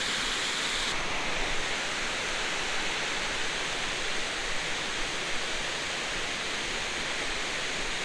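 Steady rush of river water spilling over a low stepped concrete weir. Its high hiss eases slightly about a second in.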